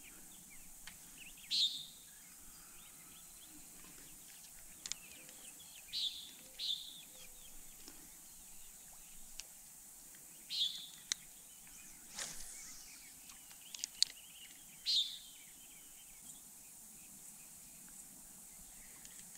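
Birds giving short chirping calls, about five of them spaced several seconds apart, over faint steady background noise, with a few light clicks in between.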